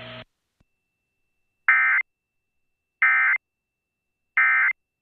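Emergency Alert System end-of-message code from a NOAA Weather Radio broadcast: three short bursts of digital data tones, each about a third of a second long and about a second and a half apart, signalling the end of the alert.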